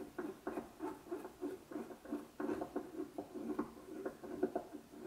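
Small screws being turned snug into the plastic end piece of an HGW20 linear bearing carriage: a run of light scratchy clicks, about three or four a second.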